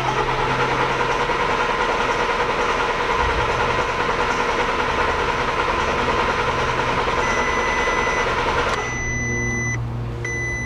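Starter cranking a 2008 Volkswagen Golf turbo diesel for about nine seconds without the engine firing, then stopping: a crank-no-start. Near the end a high electronic beep sounds three times, about a second each.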